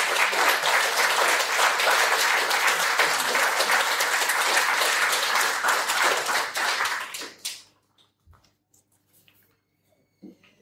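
Audience applauding for about seven and a half seconds, then dying away, followed by a few faint rustles and taps.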